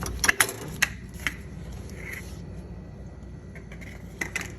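Clicks and knocks of a refrigerator's kick panel being taken off at the base of the fridge. There is a quick run of sharp clicks in the first second or so, then a few more near the end.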